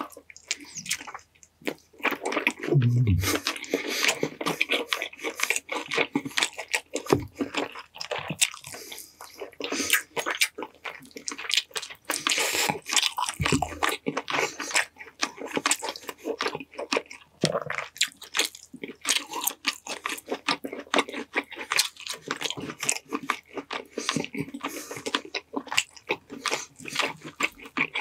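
Close-miked biting and chewing of honey-glazed chicken drumstick meat: a steady run of wet mouth clicks and smacks, with a few short low thumps.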